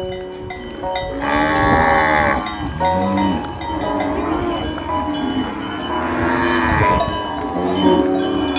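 Cows mooing: one long moo about a second in and another around six seconds in, over steady ringing tones.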